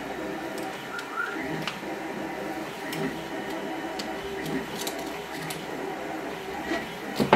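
Soft clicks of a craft knife and adhesive tape being handled, over a steady low hum, then a short loud rasp of tape being pulled off the roll at the very end.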